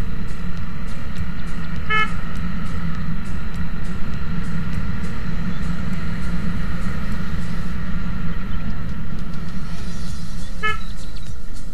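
Motorcycle riding at speed, its engine and wind making a steady low rumble on a bike-mounted camera, with two short horn toots, about two seconds in and again near the end.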